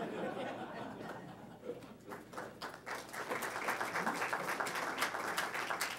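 Audience applauding, swelling about two seconds in and then continuing steadily.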